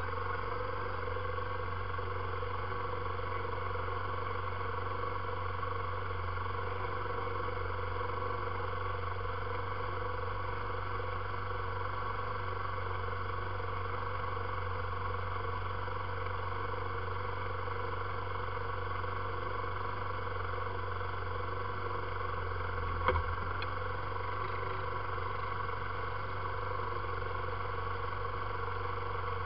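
ATV engine idling steadily, an even, unchanging drone, with one sharp click about three quarters of the way through.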